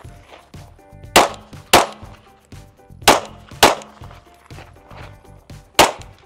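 Pistol shots fired in pairs about half a second apart, two per target: two quick pairs, then a single shot near the end. Each is a sharp crack with a short ring after it.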